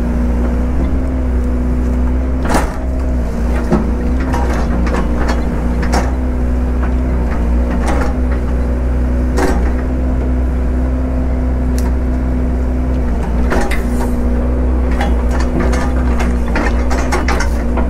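A heavy machine's engine running steadily with a constant low hum, and scattered metallic clanks and knocks throughout.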